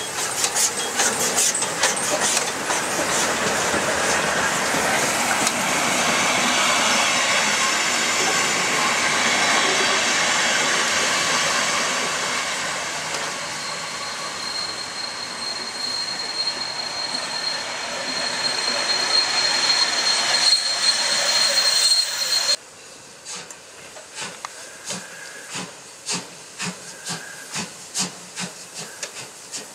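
Class 50 2-10-0 steam locomotive hauling a passenger train past at close range: steam hiss and the rumble and clatter of the carriages' wheels, with a steady high wheel squeal through the second half of the passing. After an abrupt cut about three-quarters of the way in, the sound is much quieter: the locomotive approaching slowly with soft, regular exhaust beats.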